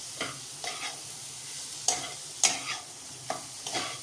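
Soya chunks sizzling as they are stir-fried in spiced masala over raised heat (the Bengali kosha step), with about seven scrapes of the stirring against the pan; the loudest scrape comes about two and a half seconds in.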